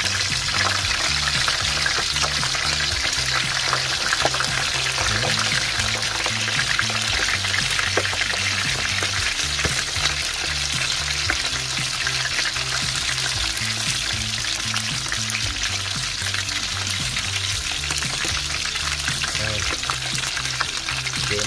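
Pieces of salted dried catfish (khô cá dứa) frying in hot oil in a wok: a steady sizzle with many small crackling spatters. The fish is still damp from soaking, so the oil spits.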